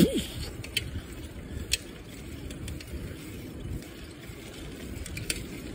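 Low, steady rumble of a bicycle rolling on an asphalt street, tyre and wind noise, with a few faint clicks.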